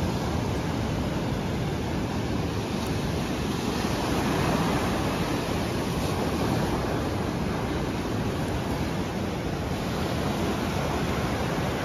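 Ocean surf breaking and washing up the beach: a steady rush of waves, swelling slightly around the middle.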